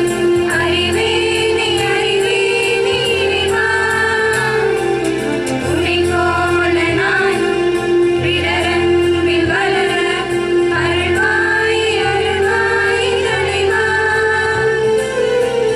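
A group of women singing a song together, over a steady held accompanying tone and a low beat that comes back about every second and a half.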